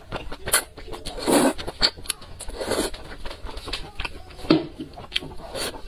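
Close-miked slurping and chewing of thick noodles in a wet sauce. Several short slurps come among lip smacks and small wet mouth clicks.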